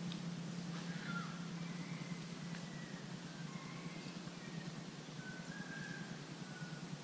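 Outdoor riverside ambience: a steady low hum with a few faint, brief bird calls over it.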